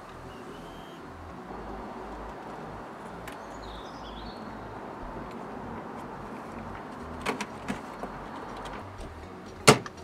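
Plastic interior trim around a car's seat belt extender arm being handled and fitted: a few light clicks, then one sharp, loud snap near the end as the panel is pressed home, over a steady background hush.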